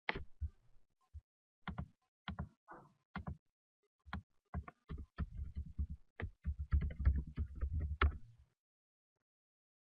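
Computer keyboard and mouse clicks: single scattered clicks at first, then a fast run of keystrokes from about five seconds in to near the end.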